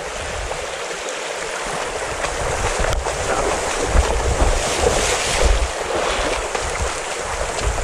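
Shallow river riffle rushing over stones. From about four seconds in, wind buffets the microphone in gusts.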